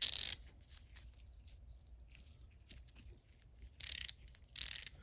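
Jensen 1/4-inch drive fine-tooth ratchet, freshly lubed and reassembled, being worked back and forth by hand. Its pawls rattle over the gear teeth in three short, fast bursts, one at the start and two near the end, with faint clicks between. This is a test of the rebuilt mechanism, and it is working.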